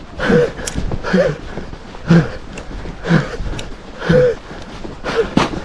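A person breathing hard while running across the ice, with a voiced gasp about once a second and footsteps.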